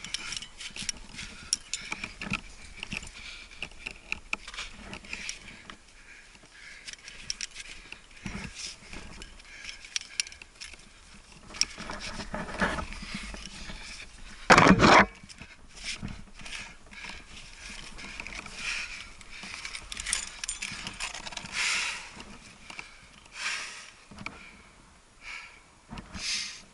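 Climbing gear clinking and scraping as protection is cleaned from a granite crack: carabiners and cams jangling, gloves and shoes scuffing the rock, with the climber's breathing. About halfway through, one brief loud burst stands out.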